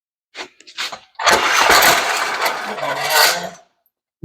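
Masking tape being pulled off the roll with a loud rasping tear for about two and a half seconds, after a couple of light handling clicks.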